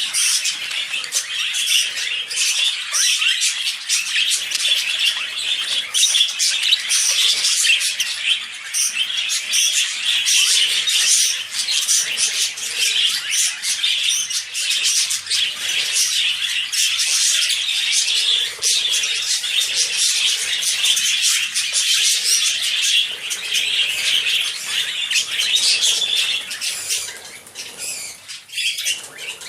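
Male budgerigar warbling and chattering without pause, a dense run of fast clicks and squeaky notes, fading out near the end. It is the excited warble a male budgie gives while rubbing himself against a perch or toy.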